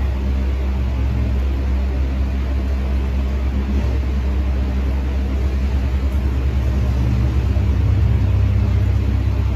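Steady low motor hum, growing a little louder about seven seconds in.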